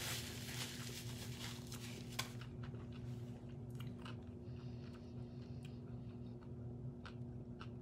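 A person chewing McDonald's fast food with crunching and scattered sharp mouth clicks, over a steady low electrical hum.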